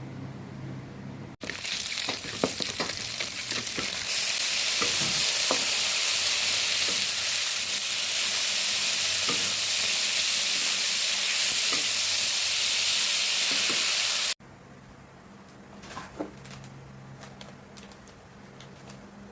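Mixed vegetables and plant-based bologna stir-frying in a hot pan: a loud, steady sizzle with scattered clicks of a utensil against the pan, starting sharply about a second in. It cuts off abruptly about three quarters of the way through, leaving a much quieter stretch with a few light clicks.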